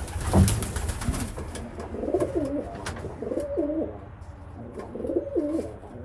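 A domestic pigeon cock cooing over and over, about three coo phrases a second and a half apart. A thump near the start.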